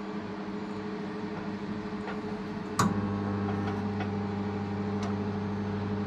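Russell Hobbs RHMM715B 700-watt manual microwave running with a steady electrical hum. About three seconds in there is a click and the hum becomes louder and deeper, typical of the magnetron cycling back on at a medium-high power setting.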